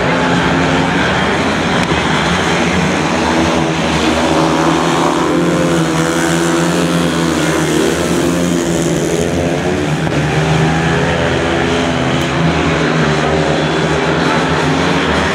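Several 500cc single-cylinder methanol-burning speedway bikes racing flat out. Their engines run loud and steady, with the pitch rising and falling about midway as two bikes sweep past close by.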